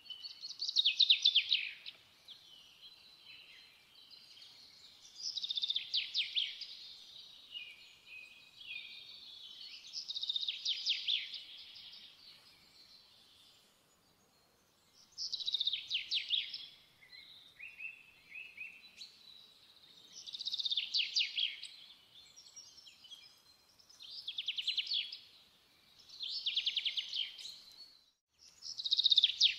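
Bird song: short phrases of rapid, high trills, repeated about every two to five seconds.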